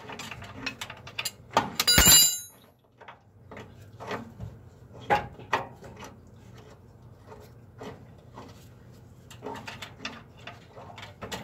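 Metal clicks and knocks as a rusty pivot bolt is worked out of a 1966 Chevrolet El Camino's front control arm bushing. About two seconds in there is one loud metallic clang that rings briefly.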